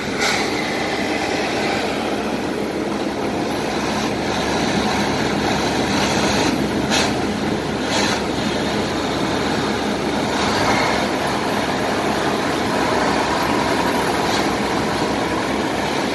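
Diesel engines of two Komatsu D70LE crawler bulldozers running hard under load while dragging a large log, a steady heavy drone with a few sharp knocks around the middle.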